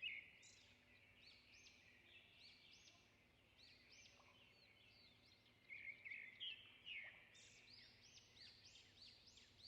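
Faint birds chirping, a quick run of many short high calls, a little louder about six to seven seconds in.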